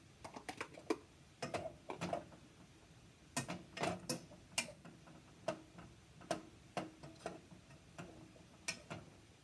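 Spatula knocking and scraping against a nonstick cooking pot while stirring, giving a string of irregular sharp clicks and taps.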